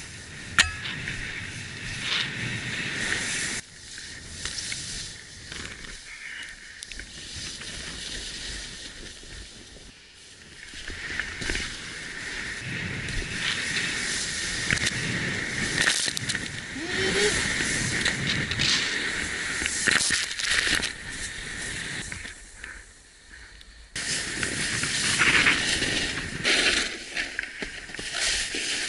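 Snowboard sliding through deep powder snow: a hiss and crunch that swells and fades with the turns, dropping away briefly a few times. A sharp knock comes shortly after the start.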